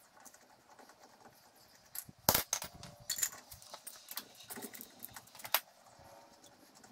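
Hand tools clinking and clanking on a pickup's rear wheel and the concrete while the wheel is readied for loosening its lug nuts. There are a few sharp metallic knocks; the loudest comes about two seconds in, with others near three and five and a half seconds and light clinks between them.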